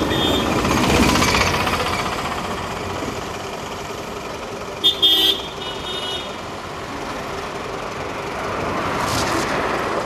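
Street traffic, with vehicle engines running and a motorcycle approaching. A vehicle horn toots twice in quick succession about five seconds in.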